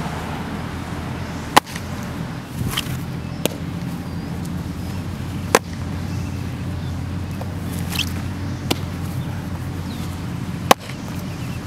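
A baseball popping into a catcher's leather mitt: three sharp pops a few seconds apart, with fainter knocks between them, over a steady low outdoor rumble.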